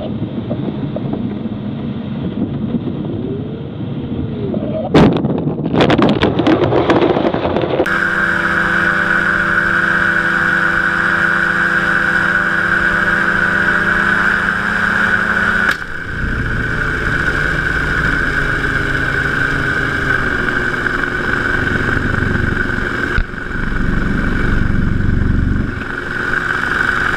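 Rumble and wind in a glider cockpit on a dirt runway, with a burst of loud knocks and rattles about five seconds in. Then comes the steady drone and high whine of an open powered-parachute trike's engine and propeller in flight. Its note drops abruptly about sixteen seconds in, and a heavier low rumble follows near the end.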